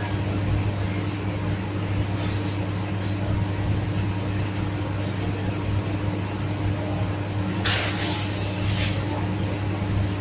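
Steady low machinery hum of a commercial kitchen, with a loud hissing rush of noise lasting about a second, near the end.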